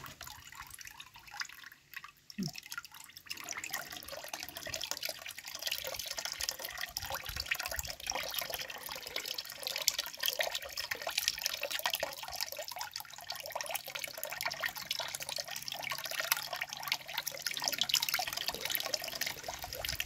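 Wet apple mash for homemade apple vinegar being squeezed by hand in a plastic mesh strainer, with liquid splashing and dripping through into the tub below. The quick patter of drips and squelches picks up about three seconds in and keeps going.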